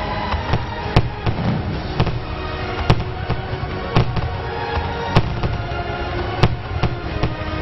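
Fireworks going off: a string of sharp bangs about once a second over a low rumble. Music with held notes plays throughout.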